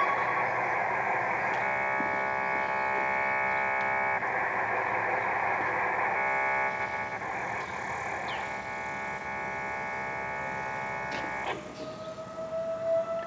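Steady layered tones over a hiss, then about twelve seconds in an outdoor warning siren starts winding up, its pitch slowly rising.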